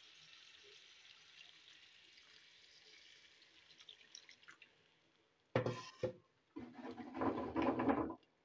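Water poured into a wok of fish curry, in a short splash and then a longer gurgling pour, over a faint sizzle of the masala cooking in the pan.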